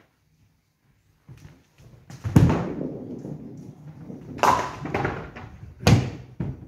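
A nine-pin bowling ball lands on the lane with a heavy thud and rolls down it with a low rumble. About two seconds later it clatters into the pins with a brief ringing crash, and another heavy thud follows about a second and a half after that.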